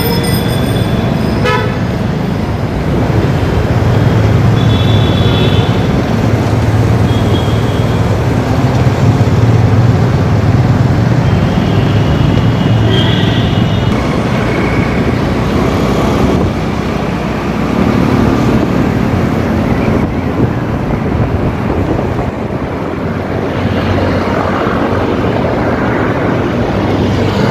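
Busy city road traffic heard from a moving motorbike: a steady low rumble of engines and road noise, with short vehicle horn toots several times, mostly in the first half.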